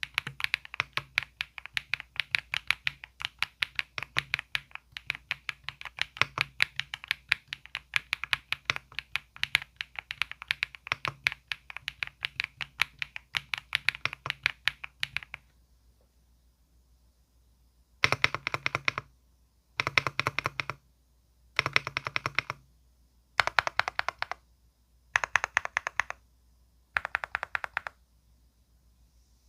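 EPOMAKER Galaxy68 full-aluminium mechanical keyboard being typed on steadily for about fifteen seconds. After a short pause come six quick bursts of keystrokes, each about a second long and about two seconds apart.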